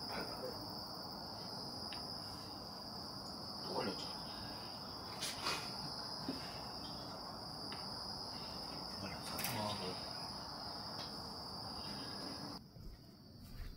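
Insects chirring in a steady high-pitched trill, with a few faint knocks. The trill cuts off suddenly near the end.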